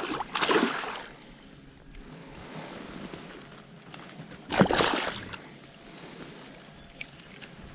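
A freshly landed pike thrashing in shallow water among reeds: two short bursts of splashing, one about half a second in and one about five seconds in, with quiet water noise between.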